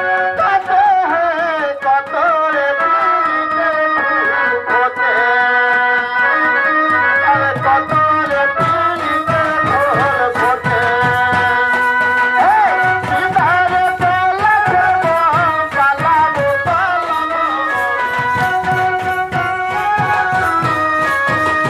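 Jhumur folk music: a singing voice over a steady held melodic accompaniment, with hand-played barrel drums. The drumming becomes denser about a third of the way in.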